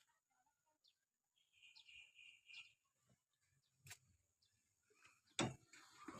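Near silence with a few faint high bird chirps about two seconds in and a faint click near four seconds. About five and a half seconds in, a sudden sharp knock is followed by louder, rougher noise.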